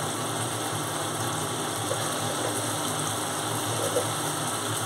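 Spiced chhena gravy sizzling and bubbling steadily in the pan on the gas burner, a soft even hiss.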